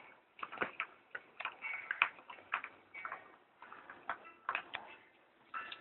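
Irregular light clicks and taps, a few to the second.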